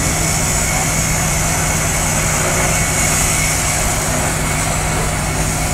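Heavy vehicle engines idling steadily, a low hum with a steady hiss over it, from the mobile crane and fire engines standing at the scene.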